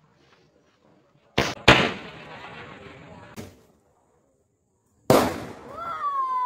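Fireworks going off: two sharp bangs in quick succession about a second and a half in, with crackling that fades over about two seconds. After a short silence comes another loud bang, followed by a long whistling tone that slowly falls in pitch.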